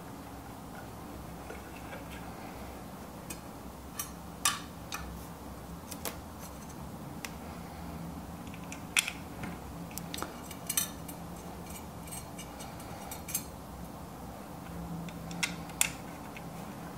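Plastic housing and metal parts of a Baratza Esatto scale assembly being handled and fitted together by hand: scattered light clicks and taps over a faint steady hum.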